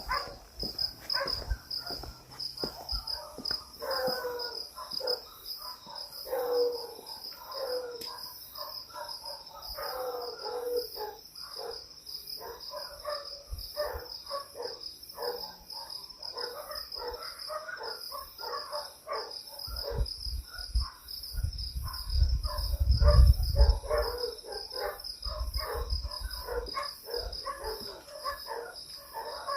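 Crickets chirping in a fast, steady pulse, with dogs barking and howling over it again and again. A low rumble comes in for several seconds past the middle.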